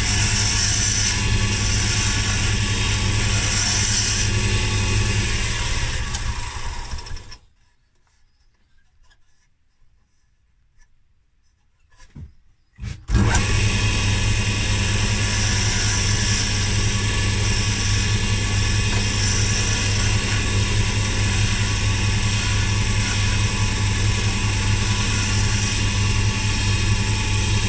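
A wood lathe motor running steadily with a hand chisel scraping and cutting a spinning wooden pen blank. About seven seconds in the sound dies away to near silence for roughly five seconds, with a few faint clicks. It then starts again abruptly and runs steadily to the end.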